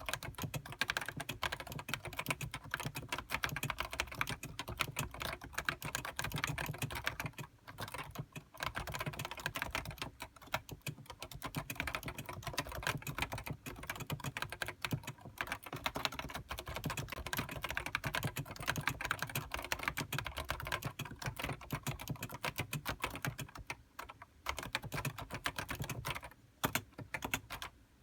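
Fast, continuous typing on a Topre Realforce HiPro keyboard with electro-capacitive Topre key switches: a dense stream of keystrokes broken by a few short pauses.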